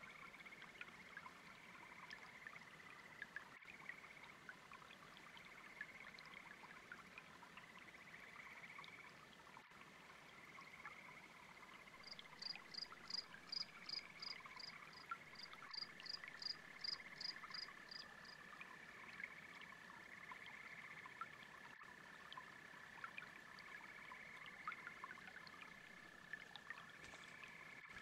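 Faint chorus of frogs trilling in repeated bursts over the low rush of a babbling brook. For a few seconds just before the middle, a cricket's high chirps come in at about three a second.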